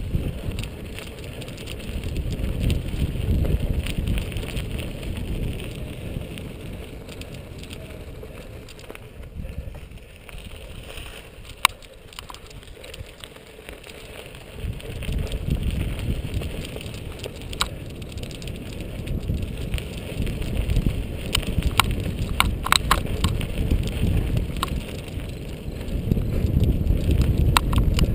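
Cyclocross bike riding over a dry dirt and gravel course: wind rushing on the microphone and tyres running over the ground, with scattered sharp clicks and knocks from the bike. The rushing fades in the middle and builds again near the end.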